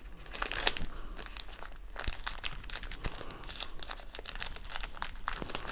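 Small plastic accessory bag crinkling and rustling in rapid, irregular crackles as hands struggle to get it open.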